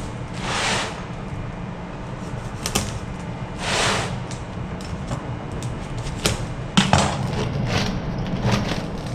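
A knife cutting plastic strapping bands on a rope coil and the straps being pulled free: a few sharp snaps and short scraping rustles, over a steady low machinery hum.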